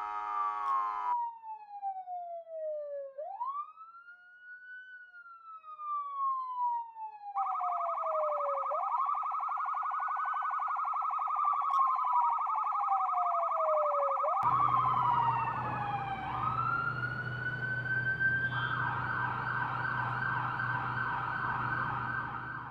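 Police siren wailing in slow cycles, each a quick rise and a long fall in pitch, layered with a sustained synthesizer chord. About two-thirds through, a low rumble joins it. Near the end the siren holds high with a fast pulsing.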